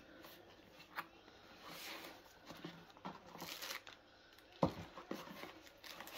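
Cardboard packaging and plastic-bagged accessories being handled: soft rustling and crinkling with a few light knocks, the loudest about four and a half seconds in.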